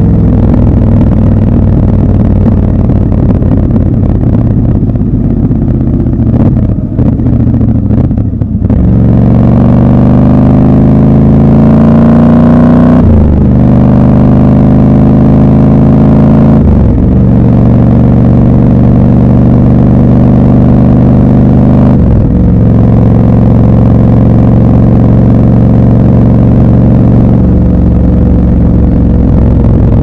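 Triumph Scrambler 1200 XC's 1200 cc parallel-twin engine heard from the saddle at riding speed. It runs steadily, eases off about seven seconds in, then pulls with rising revs, dropping briefly three times as it shifts up. After that it settles into a steady cruise.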